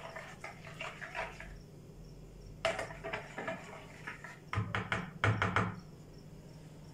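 A spoon clinking and scraping against a plastic mixing bowl and small containers while ingredients are stirred and measured, with a quick run of sharp clicks about five seconds in.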